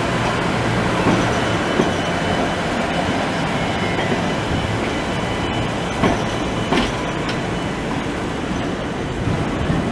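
Alstom Citadis tram passing close by, its wheels running on the rails in a steady rumble, with a few short sharp clicks from the wheels and track.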